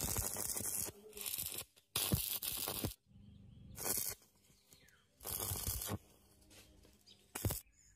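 Electric arc welding crackling in a series of short bursts, about six in all, each lasting from a fraction of a second to about a second with short pauses between them, like tack welds being laid.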